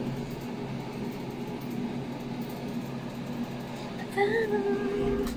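A steady low electrical-sounding hum. About four seconds in, a woman hums a single held note that slides down at the end.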